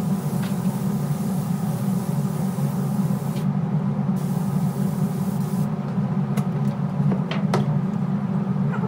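Hiss of a compressed-air spray gun applying glass coating, over a steady low mechanical hum. The hiss pauses briefly about three and a half seconds in, then stops at about six seconds, followed by a few sharp clicks.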